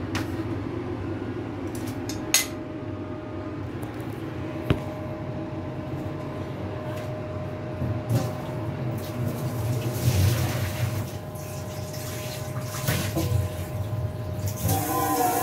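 Kitchen handling of pots and utensils: a few sharp clinks and knocks, busier clattering about two-thirds of the way through, over a steady low background hum.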